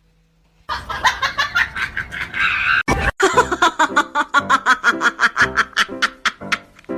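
Laughter: after a short pause, a run of rapid ha-ha pulses, about five or six a second, from about three seconds in, led by a short loud burst.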